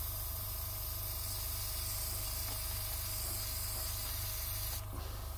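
Gravity-feed airbrush spraying paint onto styrene: a steady hiss of compressed air that cuts off near the end.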